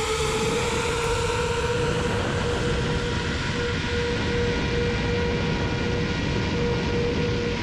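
7-inch FPV quadcopter's Brother Hobby 2507 1500KV motors and 7040 triblade propellers whining at a steady pitch in forward flight, over a steady rush of wind noise.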